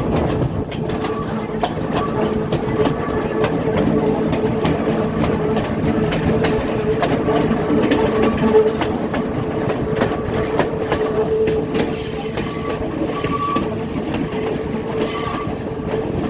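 Passenger train running on the rails: a steady rumble and drone with many sharp clicks of the wheels over the rail joints, and short wheel squeals coming and going.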